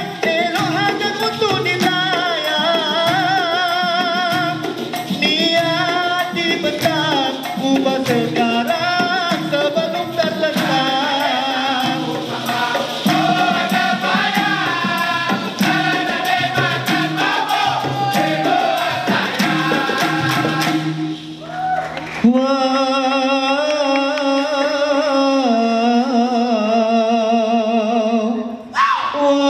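Dikir barat singing: voices singing a melody over fast, busy percussion and rattles, then about two-thirds of the way through the percussion stops and a lone male voice sings long, held, wavering notes unaccompanied.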